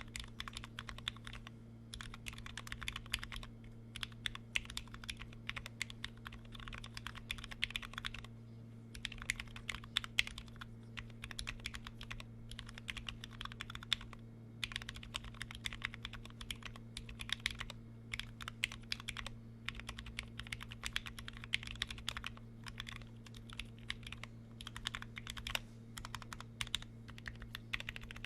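Typing on an OG Minivan 40% custom keyboard with lubed and filmed 68 g Zealios tactile switches: quick runs of keystrokes broken by short pauses. A steady low hum runs underneath.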